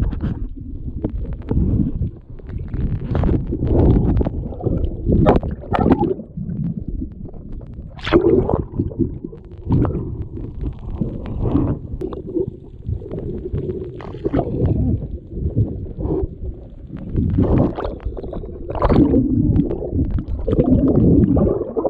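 Muffled underwater rumbling and gurgling from water and bubbles moving around a submerged action camera, in irregular surges, with a few sharper knocks.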